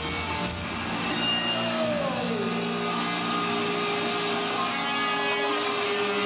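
Sustained electric guitar feedback and amplifier drone left ringing out at the end of a live punk song, with one tone sliding down in pitch about two seconds in, then holding steady.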